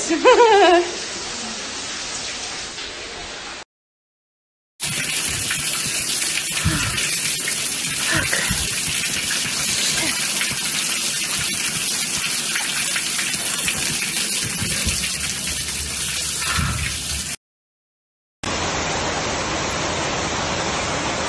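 Water gushing steadily from burst pipes, first pouring down through a collapsed ceiling and then spraying onto a flooded parking-garage floor. The even rushing breaks off twice for about a second.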